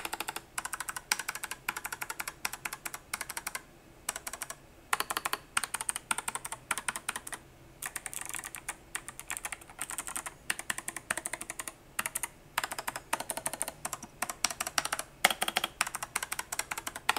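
Keys of an 8BitDo Retro Mechanical Keyboard being typed in rapid bursts of sharp clicks with short pauses between them. The owner finds its sound very plasticky and puts this down to the keyboard's base.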